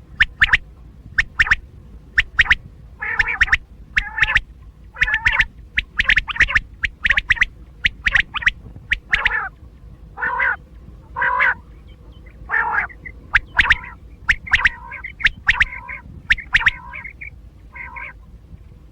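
Quail (batair) calling over and over, used as a hunting lure call. Quick, sharp notes come in short groups, mixed with slightly longer, lower calls.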